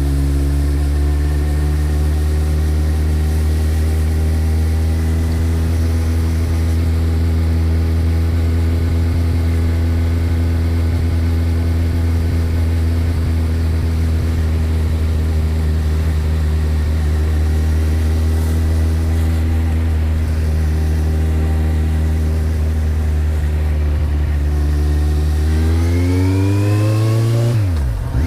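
2008 Kawasaki Z1000's inline-four engine through a Mivv GP exhaust with the dB killer fitted, running at a steady speed. Near the end it is revved once, the pitch rising and then dropping sharply back.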